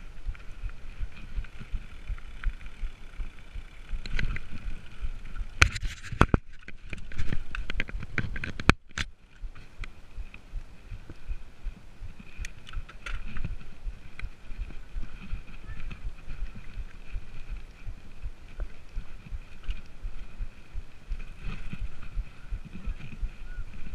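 Mountain bike being ridden over gravel and then a dirt singletrack: tyres rolling and the bike rattling over the rough ground. A cluster of loud, sharp knocks and clatters comes from about six to nine seconds in.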